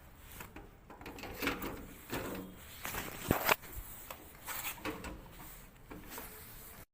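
Washing machine parts being handled during repair: scattered clicks, knocks and scraping, with one sharp knock about three seconds in.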